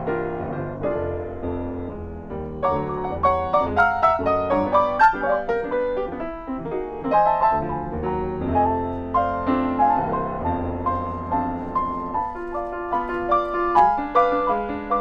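Solo Yamaha grand piano playing a melody over sustained low bass notes, with flurries of quick, louder notes about three seconds in and again near the end.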